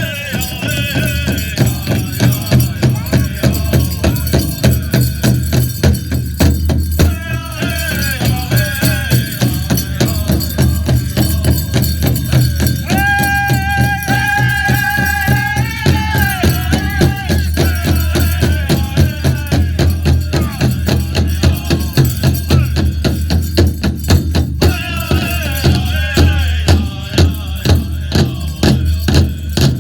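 Powwow drum group: several singers in high-pitched chant over a steady, even beat on a large shared bass drum. Partway through, the voices hold one long high note before dropping back into the chant.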